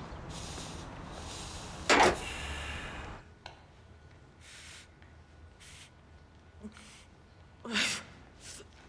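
A single loud thump about two seconds in, then several short, soft breathy gasps and sighs.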